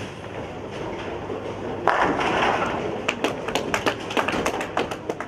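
A bowling ball rolling down a wooden lane, then crashing into the pins about two seconds in, a strike, with the pins scattering; a run of sharp, irregular clacks follows.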